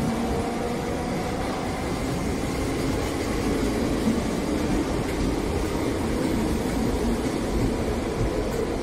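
Merseyrail electric train running on the track: a steady rumble of wheels and rails, with a motor whine fading out in the first second or two.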